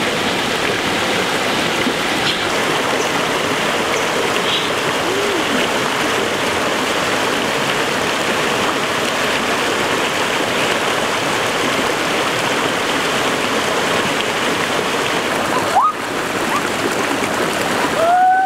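Stream water rushing steadily over rocks. Near the end a man gives a short shout.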